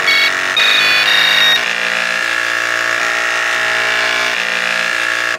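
Eight floppy drives' stepper motors buzzing out the closing notes of a pop tune as pitched tones, in a steady pulsing rhythm. High notes drop out about a second and a half in, and everything stops suddenly at the end of the song.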